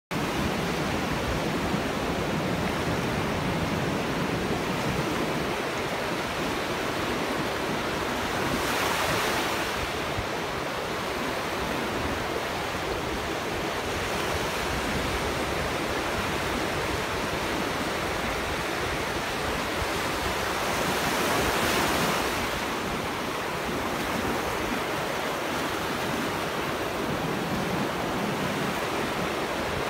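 Ocean surf on a beach: a steady rush of breaking waves and foam washing in. It swells louder as bigger waves break about nine seconds in and again around twenty-one seconds.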